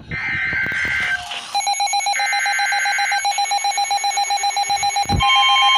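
Emergency weather alert on a weather alert radio: two warbling bursts of the digital alert header, overlapped from about a second and a half in by a steady, rapidly pulsing alarm tone. About five seconds in, a second steady, slightly higher tone joins. This is the alarm that announces a severe thunderstorm warning.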